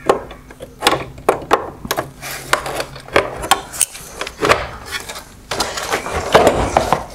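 Irregular hard plastic clicks, knocks and scraping from a Nissan Rogue LED headlight housing as the clips holding its mounting tab are worked loose, with a longer stretch of scraping near the end.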